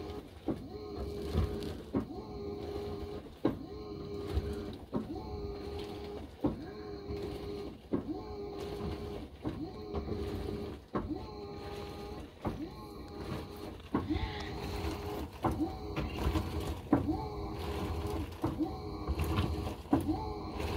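Washing machine drum tumbling back and forth during an empty clean washer cycle: the motor hums for about a second and a half, then knocks as it reverses, over and over in a steady rhythm.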